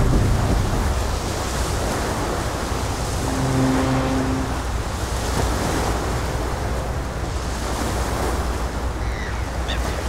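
Steady rush of water and a low rumble from a motor boat passing on a river with its bow wave, with a short low humming tone about three and a half seconds in.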